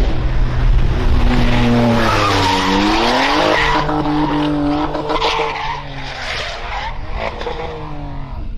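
Small hatchback racing car's engine running at high revs through a bend, with tyres skidding. The engine's pitch dips and climbs again about three seconds in, then fades as the car moves away. A few knocks come near the end as the car lurches up onto two wheels.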